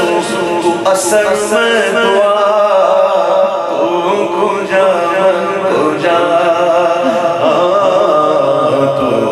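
A man's voice singing a naat, the Urdu devotional poem in praise of the Prophet, in long, wavering held notes.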